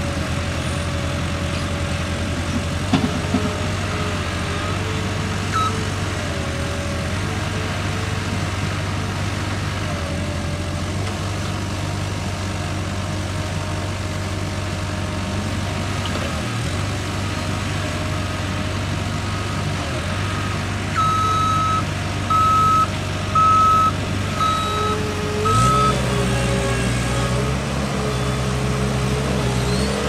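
Caterpillar 216 skid steer loader's diesel engine running steadily, its pitch wavering as the machine works. About two-thirds of the way in, its reversing alarm beeps about five times, roughly once a second. Near the end the engine note drops and gets heavier.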